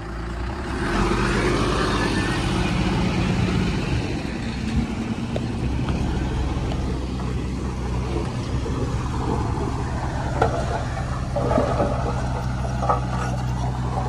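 Diesel engine of heavy earthmoving machinery running under load. It grows louder about a second in and then holds steady, with a few short metallic clanks near the end.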